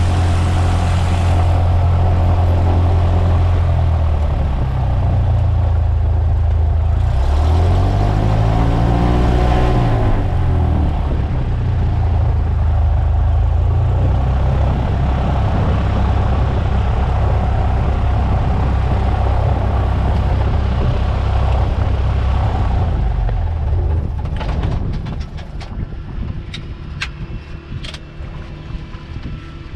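Cessna 152's four-cylinder Lycoming O-235 piston engine running at low power, its pitch rising and falling once about eight seconds in. It then cuts out about 24 seconds in, and a few sharp clicks follow.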